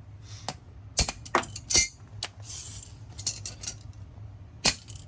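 Hard plastic clicks and clacks as a piece of a wireless mouse is bent and cracked, a quick run of sharp knocks with the loudest between one and two seconds in and another near the end.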